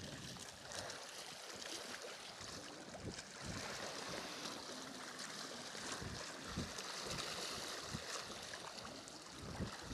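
Small sea waves lapping and washing against breakwater rocks: a steady soft hiss with irregular low bumps.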